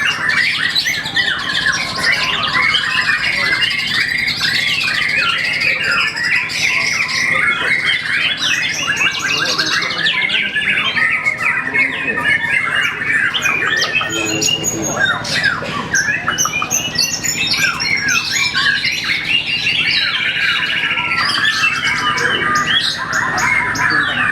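Caged songbirds singing a fast, unbroken stream of varied chirps, whistles and trills.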